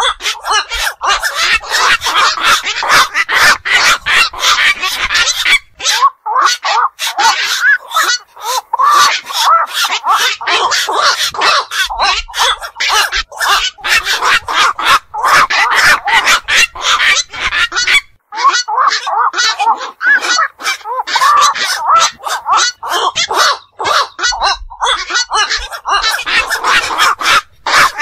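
Black-crowned night heron calls played back: a dense run of short honking calls, several a second, with a few brief breaks.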